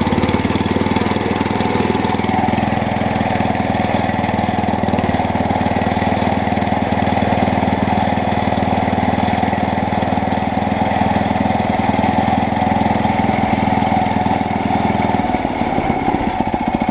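Petrol lawnmower engine running, throttled up from low revs over the first couple of seconds and held steady at higher revs, then dropping back to a slower idle near the end.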